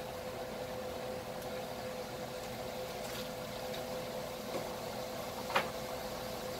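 Steady hum of a kitchen appliance or fan holding one constant tone, with a couple of faint clicks and one sharper clink near the end, as of a spoon against a pan.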